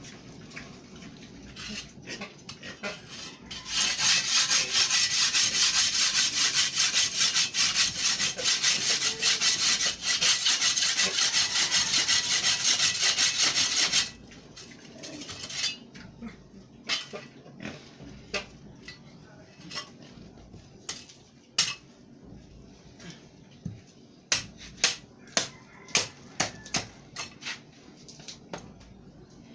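Concrete block being cut by hand: about ten seconds of loud, steady grating, then a run of sharp irregular taps and knocks as the block is chipped.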